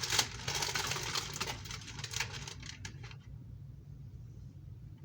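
Rustling and scraping handling noise for about three seconds, stopping abruptly, over a steady low hum.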